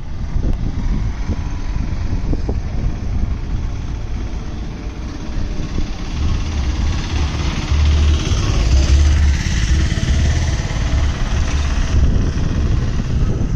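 Diesel locomotive hauling a passenger train, a steady engine rumble heard from a distance, with wind buffeting the microphone, heaviest from about six seconds in.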